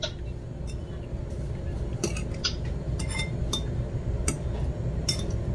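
A metal spoon clinking against a ceramic bowl of beaten egg in scattered light taps, as a flour-coated potato croquette is turned and coated in the egg.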